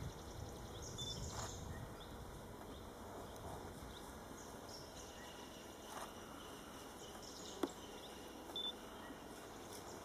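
Faint outdoor background hiss with a few brief, high chirps and one sharp click about three-quarters of the way through.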